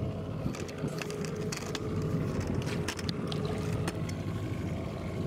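Boat motor running steadily at trolling speed, with scattered knocks and splashes as a hooked walleye thrashes at the surface beside the hull.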